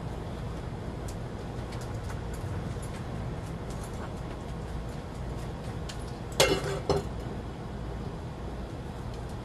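Steady low hum, broken about six and a half seconds in by two short, loud cries close together.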